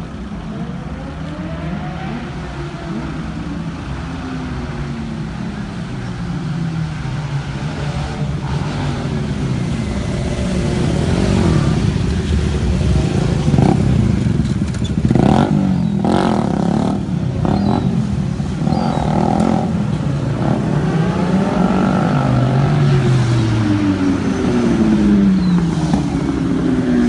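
Cars and motorcycles driving past one after another, engines revving, their pitch sweeping up and down as each goes by. The traffic noise grows louder over the first ten seconds or so.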